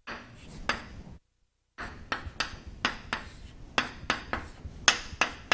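Chalk tapping and scraping on a chalkboard as tick marks are drawn along a graph axis: a string of short sharp knocks at uneven spacing, about two a second.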